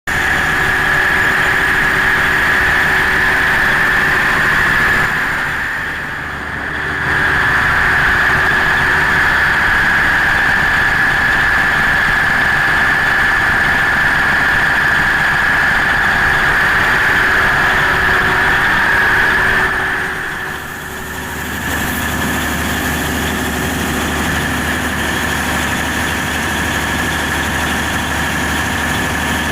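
Perkins 4006 diesel generator set running steadily under load, a loud engine drone with a strong steady high whine over it. The sound dips briefly twice, and after the second dip it is a little quieter and heavier in the low rumble.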